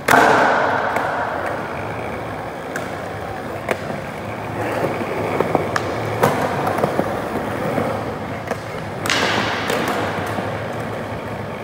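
Skateboard wheels rolling on smooth concrete, with the sharp clack of the board striking the floor or a ramp edge every now and then. The loudest clack comes right at the start.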